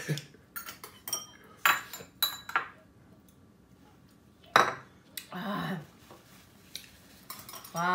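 Metal eating utensils clinking and tapping against bowls and dishes during a meal: a scattered run of short, sharp clinks, the loudest about halfway through.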